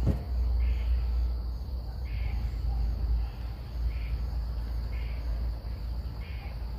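Insects chirping outdoors: a steady high trill with a short chirp about once a second, over a steady low rumble. A small knock right at the start.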